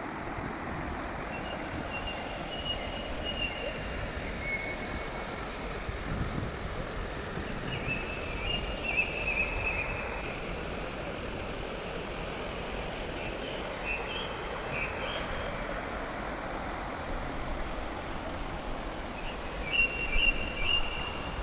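Birds calling with short whistled chirps over a steady rushing background noise. Twice, about a quarter of the way in and again near the end, a run of rapid, high-pitched pulsing chirps at about four a second stands out as the loudest sound.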